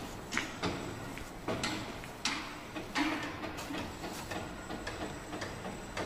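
Footsteps on a bare concrete slab floor: separate hard steps at a walking pace.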